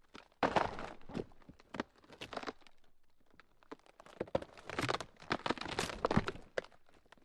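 Ground cracking: dense crackling and crunching snaps in two drawn-out bursts, the first starting about half a second in, the second about four seconds in, with quieter scattered cracks between.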